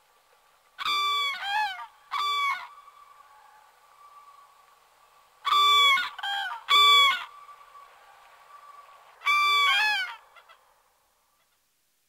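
Common cranes trumpeting: five loud, rolling calls in three groups, each dropping in pitch at the end, over faint steady background calling. The calls stop about a second before the end.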